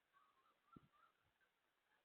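Near silence picked up by a security camera's microphone: faint high chirps and one soft low thump a little under a second in.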